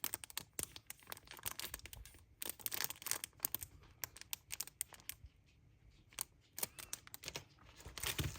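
Plastic packaging crinkling and tearing in irregular crackles as a small merchandise item is unwrapped by hand.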